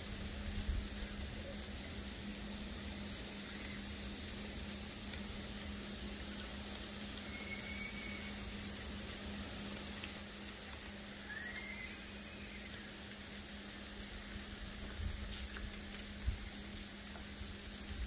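Ice pellets (sleet) falling with a steady pattering hiss, with gusts of wind bumping the microphone a few times and a faint bird chirping twice midway.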